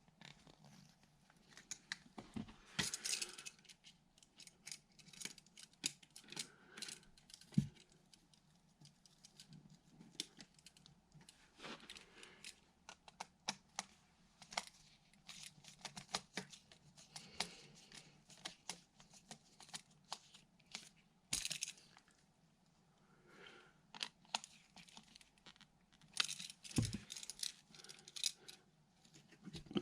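Irregular small clicks, taps and scrapes of hand tools on copper wire, with one low thump about a third of the way in: wire ends being bent into hooks with needle-nose pliers and fastened under an outlet's terminal screws.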